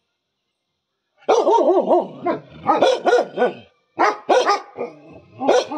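A dog barking loudly: a quick run of barks starting about a second in, then single barks roughly every half second.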